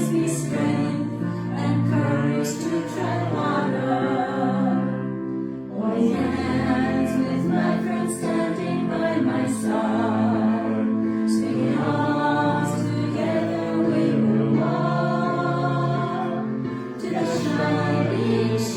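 A choir singing slow, sustained notes, changing pitch every second or two.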